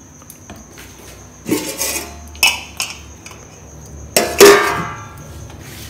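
Stainless steel bowl and lid clinking and clanking as dough is taken from the bowl: a few light knocks, then one louder clang about four seconds in that rings briefly.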